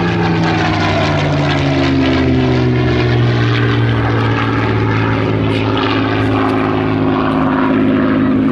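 Rolls-Royce Merlin piston engine noise from a propeller warbird flying past, loud and steady, its engine note sliding slowly down in pitch as the aircraft goes by.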